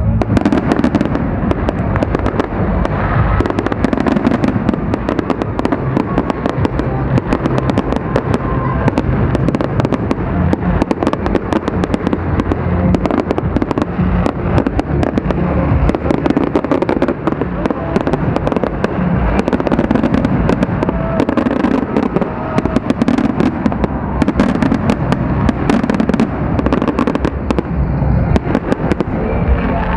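Fireworks display: a dense, continuous barrage of bangs and crackles from shells bursting in quick succession, with no break.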